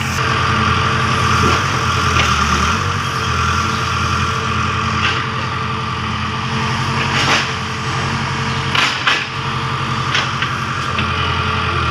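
A motor running steadily, with a few short clicks and knocks.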